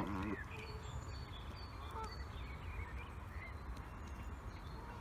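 Faint bird calls: a short wavering call right at the start, then a few faint, short high chirps, over a steady low rumble of wind on the microphone.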